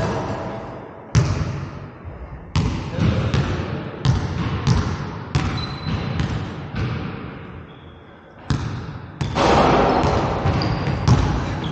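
Basketball dribbled on a hardwood gym floor: sharp, irregular bounces, several close together, each with an echo in the big hall. A few brief high squeaks, and a louder stretch of scuffing and bouncing about nine seconds in.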